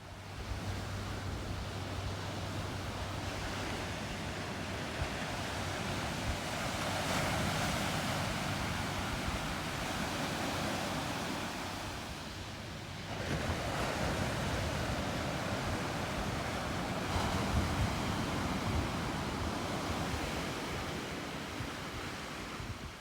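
Ocean surf washing onto the beach: a steady rush of breaking waves that swells and eases, dipping a little past the middle before building again.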